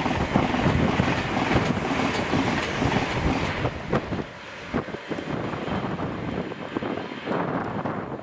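A multiple-unit train passing close by at speed, its wheels and body making a loud rush and rumble that stops abruptly about three and a half seconds in. After that there is a quieter rumble with wind on the microphone and a few sharp clicks.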